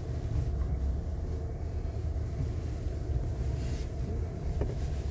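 Steady low rumble of a 2024 Ford Maverick Tremor pickup driving along a muddy dirt trail, heard from inside the cabin.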